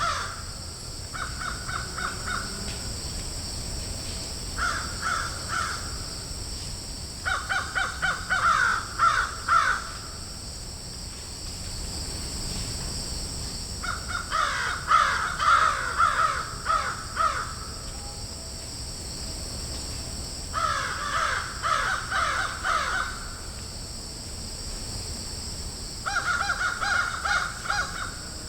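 Crows cawing in a field, in about six bouts of quick repeated caws with pauses of a few seconds between them, over a steady high-pitched whine in the background.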